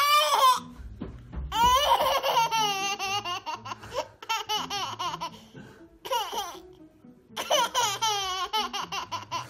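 One-year-old girl laughing hard in several separate bouts of rapid, high-pitched giggles; the longest bout starts about a second and a half in.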